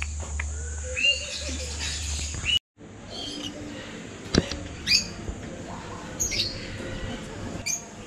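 Aviary parrots and parakeets calling: scattered short chirps, whistles and squawks that rise and fall in pitch, with a low steady hum under the first couple of seconds. The sound drops out for a moment about two and a half seconds in, and a single sharp click comes a little after the middle.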